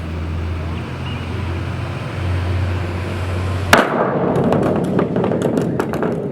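A transparent kayak hits the ground after a drop from about 10 m. There is one sharp, loud impact about two-thirds of the way through, then about two seconds of rattling clatter, over a steady low hum.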